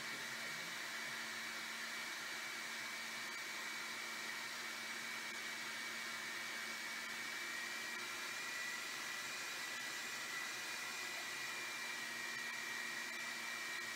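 Electric food processor motor running steadily at full speed, an even whirring hiss with a steady high whine, as it blends a thick chickpea-and-tahini paste into hummus.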